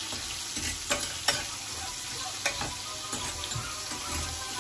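Sweet peppers frying in butter in a frying pan: a steady sizzle, with a few sharp clicks as they are stirred against the pan.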